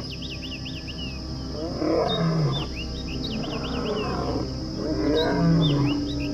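Lions growling in low, drawn-out calls that come again every two to three seconds, with quick high chirping trills between them.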